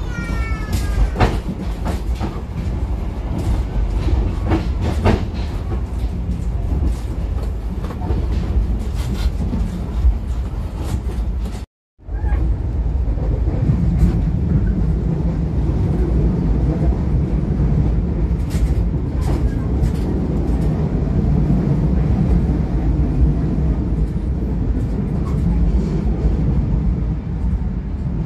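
Train running, heard from inside a passenger coach: a steady low rumble with scattered clicks and knocks from the wheels on the rails, and a short falling squeal at the very start. The sound drops out for a moment about twelve seconds in, then the running noise goes on, heavier at the low end.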